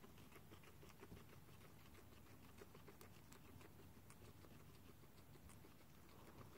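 Guinea pig chewing fresh cilantro and dill stems: faint, rapid crunching clicks from its teeth, going on steadily.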